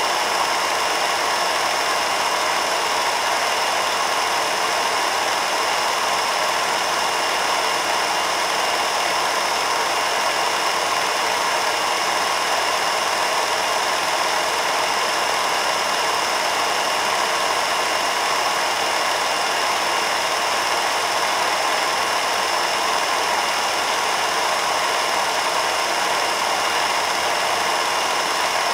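Home-movie film projector running: a steady, unbroken mechanical whir.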